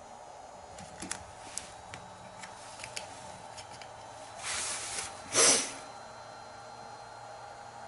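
Several light clicks from the buttons of a Hitec X1 hobby battery charger, then two short hissing whooshes about four and a half seconds in, the second loud and brief.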